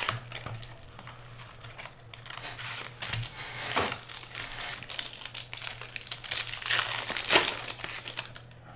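Trading card pack wrappers being torn open and crinkled by hand, an irregular run of crackling rustles that grows busier and louder in the second half.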